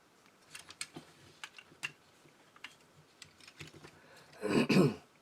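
Light clicks and taps of hard plastic toy parts as a transforming robot action figure with an upgrade kit is handled and posed, a handful of scattered ticks over the first few seconds. A brief voice sound near the end.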